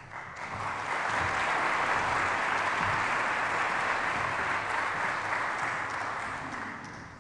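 Audience applauding: the clapping builds within the first second, holds steady, then dies away near the end.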